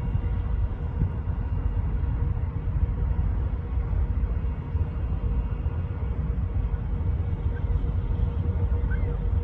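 Steady low vehicle rumble, with a faint steady hum over it.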